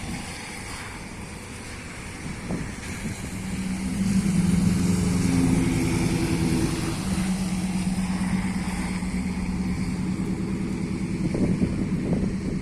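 Steady hiss of rain, with a vehicle engine humming steadily on top from about four seconds in until near the end.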